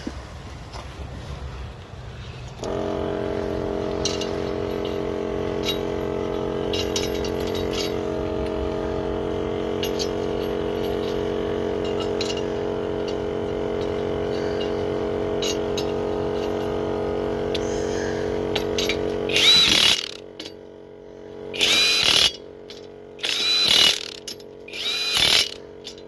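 A portable air compressor's motor starts about three seconds in and runs steadily. Near the end, four short, loud bursts of a power tool break in, one after another with short pauses between them.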